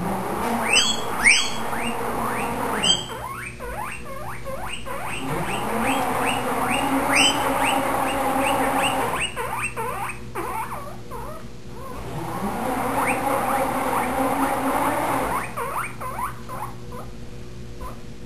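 Guinea pig squealing in a quick run of rising squeaks, several a second, loudest near the start: the excited food-begging call the owner calls singing. Under it a salad spinner whirs twice, rising in pitch as it speeds up and then running steady.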